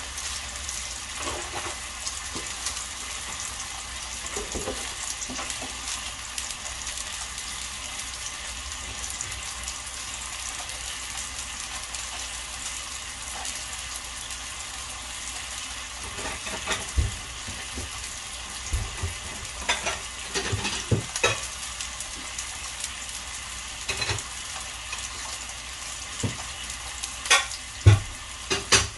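Beef steaks and vegetables sizzling in a hot grill pan, a steady hiss with sharp pops of spitting fat that come more often in the second half, the loudest near the end.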